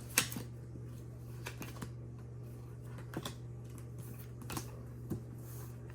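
Trading cards being handled and set down on a table: light, irregular taps and clicks over a steady low hum.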